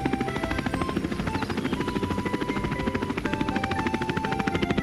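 Cartoon sound effect of a toy quadcopter's rotors in flight: a fast, even, helicopter-like chopping.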